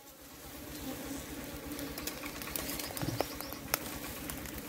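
Honeybees buzzing around a freshly dug-out wild comb, a steady low hum, with scattered clicks and rustles of twigs and leaves being handled in the second half.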